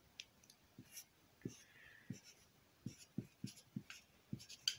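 A felt-tip marker writing on paper: a faint, quick run of short scratches and taps as symbols and brackets are drawn, with one slightly longer stroke about two seconds in.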